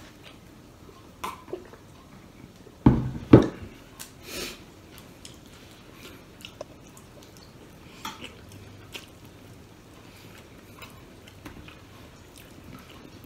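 Close-up eating sounds: chewing and soft wet clicks as a man bites meat and eats rice with his hands. About three seconds in come two loud thumps half a second apart, the loudest sounds here.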